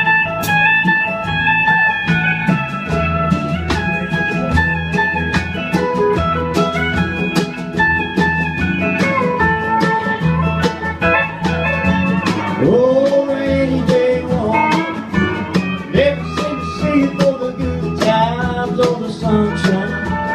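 Instrumental intro of a country song: a band with guitar lead lines over bass and a steady beat, with bending, sliding notes about two-thirds of the way through.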